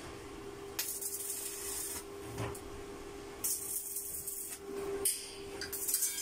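Stick (arc) welding on a steel bird-cage frame: the electrode's arc hisses and crackles in three short bursts of about a second each, as tack welds are struck.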